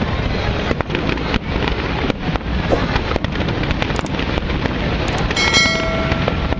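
Fireworks display: many sharp pops and crackles of bursting shells over a constant loud din. A steady held tone joins in about five seconds in.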